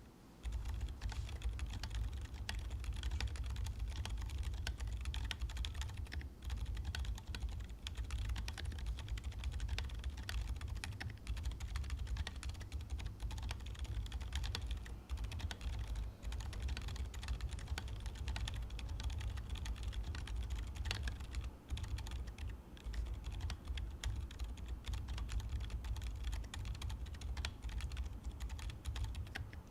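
Continuous typing on a Qwertykeys QK80 mechanical keyboard fitted with SW x TTC Peanut Latte silent tactile switches, an aluminium plate, no foam and a gasket-mounted PCB, under Outva keycaps: a dense, steady stream of key strokes that starts about half a second in.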